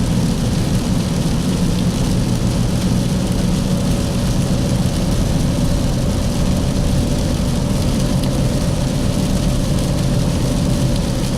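A vehicle driving, heard from inside the cabin: a steady low engine hum under a constant rushing noise, with a faint steady whine.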